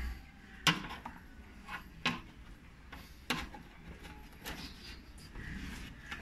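A few sharp knocks and clicks, spaced about a second apart, over a faint low background.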